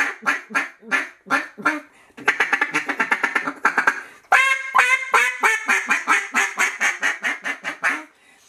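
RNT Mondo single-reed duck call blown in mallard-style quacks: three runs of rapid quacks, about five a second, with short pauses between. The caller feels it has lost its bottom end and suspects a short reed; the reed is chipped, missing about a 32nd of an inch.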